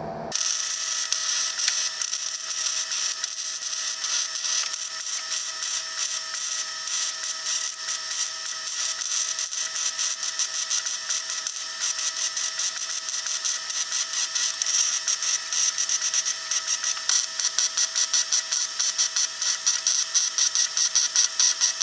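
MIG welding arc from a Longevity MigWeld 140 running .030" wire on C25 gas, crackling and buzzing steadily as it welds steel roll cage tubing. In the last few seconds the crackle becomes choppy and pulsing.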